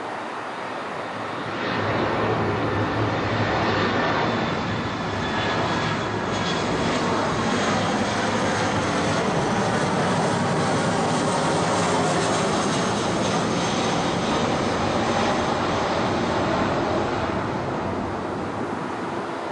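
Boeing 737's twin CFM56 jet engines as the airliner passes low overhead on final approach with its landing gear down. The jet noise swells about two seconds in, stays loud while the plane is overhead, and eases off near the end as it moves away.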